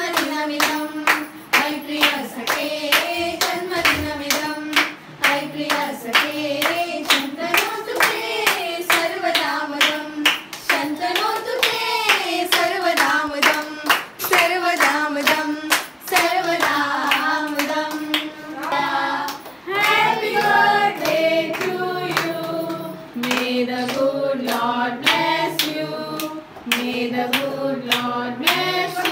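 A group of children and adults singing a birthday song together, clapping along in time, while the cake is cut.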